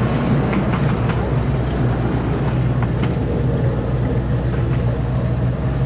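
Small miniature ride-on park train running along its track: a steady low rumble with occasional sharp clicks from the wheels and cars.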